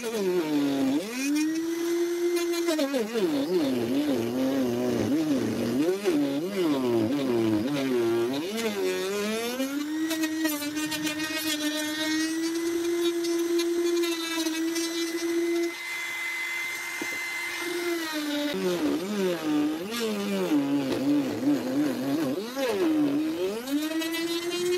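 Handheld electric trim router running while routing a groove in a wooden strip. Its motor pitch sags again and again as the bit bites into the wood under load and then recovers, and it holds a steady pitch for several seconds in the middle.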